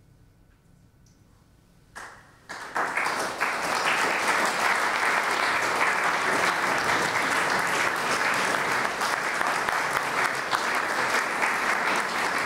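Crowd applause that breaks in suddenly about two seconds in after a quiet start, then goes on as steady, dense clapping.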